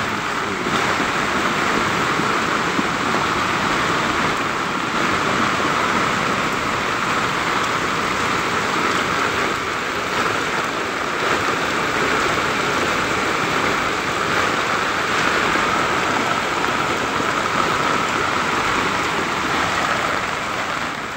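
Steady rush of a muddy flash-flood torrent pouring across a road, mixed with heavy rain.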